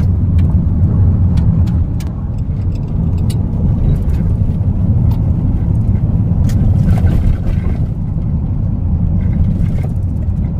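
Steady low rumble of a car driving along a road, heard from inside the cabin: tyre and road noise with the engine underneath.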